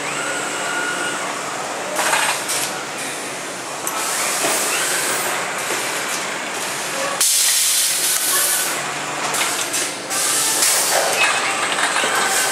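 Automated crate stacker running: machinery running with a faint rising whine, plastic crates clattering a few times, and a loud hiss of compressed air for about a second and a half, starting about seven seconds in.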